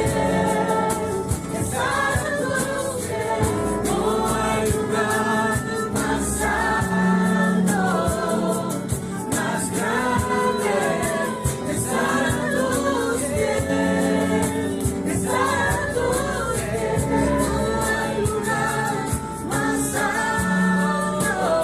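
Christian worship music with a choir singing over sustained low instrumental tones.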